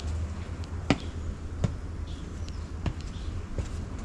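Footsteps on a dirt path: a few sharp, unevenly spaced steps over a steady low rumble.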